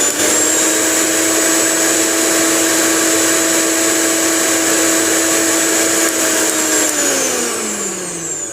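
Butterfly Jet 750-watt mixer grinder motor running at full speed with a steady high whine. About seven seconds in it is switched off and the whine falls in pitch as the motor spins down. It measures about 86 dB on a phone sound meter.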